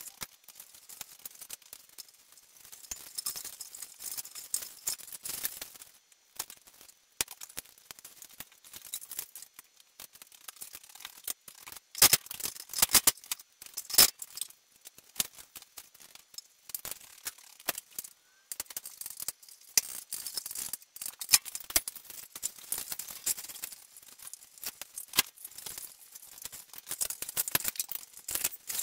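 Hand work on vehicle parts: irregular scraping and rubbing with many sharp clicks and knocks, a few louder knocks around the middle.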